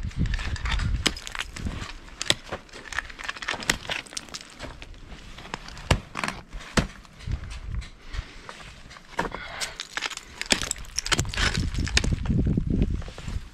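Ice axe picks and crampon points striking a frozen waterfall while climbing: a series of sharp, irregular strikes with the crunch of ice chipping. There is a low rumble near the start and again near the end.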